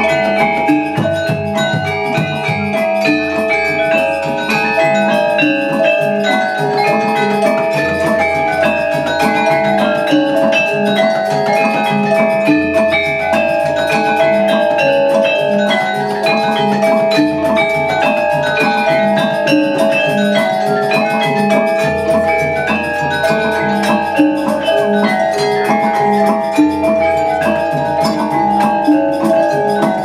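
Gamelan ensemble playing: bronze metallophones and gong-chime kettles struck with mallets in dense interlocking patterns of ringing notes, over a deep low note that changes about every five seconds.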